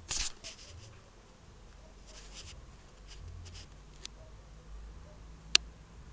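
A short scratchy rustle at the start, a few fainter scratchy rustles after it, then several sharp clicks, the loudest near the end.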